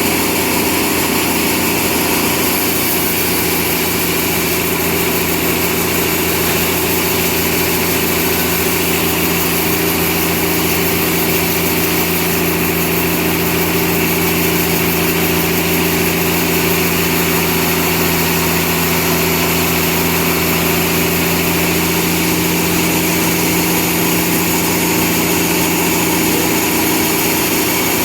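Sawmill machinery running at a steady pitch and level, a constant hum with no pauses or changes.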